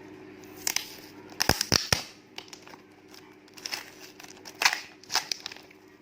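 Shipping packaging being torn open and crinkled by hand: irregular sharp crackles and rips, a loud cluster about a second and a half in and another near the end.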